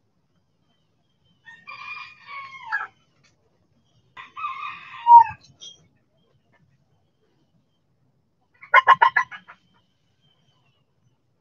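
Backyard chickens calling: two drawn-out calls, each falling in pitch at the end, then a quick run of about eight loud clucks near the end.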